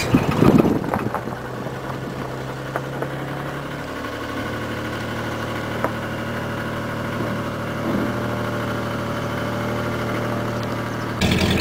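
Big-block Chevy 454 V8 of a propane-fuelled 1984 one-ton pickup idling steadily, its low note dropping slightly about four seconds in.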